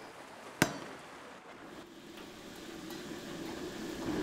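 A single sharp chop of a cleaver through a small crab onto a wooden chopping board, about half a second in. Then the steady rush of a wok burner grows louder over the last seconds.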